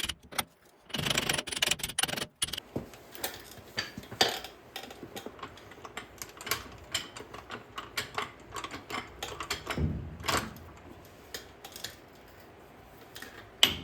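Light metal taps and clinks as a tight-fitting part is tapped onto the axle, with a quick cluster of clicks about a second in and single taps spaced out after.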